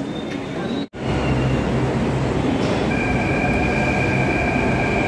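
Delhi Metro electric train moving along the platform: a steady rumble and hum. From about three seconds in, a high, steady electric whine joins it. The sound cuts out briefly about a second in.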